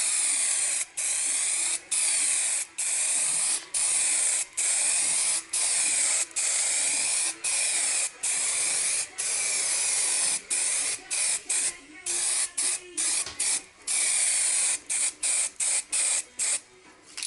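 Aerosol can of one-component primer spraying in a run of hissing bursts about a second long with brief pauses between them, the bursts turning shorter and quicker near the end, as primer is laid over bare car bodywork ready for filler.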